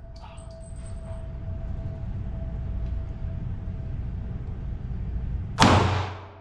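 A single Glock pistol shot about five and a half seconds in, loud and sharp with a short echoing tail, over a steady low rumble.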